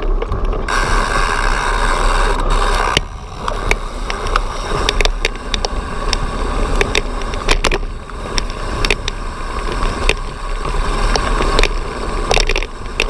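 Mountain bike riding down a dirt trail and onto a wooden slatted boardwalk. A steady buzz for the first three seconds gives way to a run of irregular sharp clicks and rattles as the tyres cross the slats and the bike and camera mount shake.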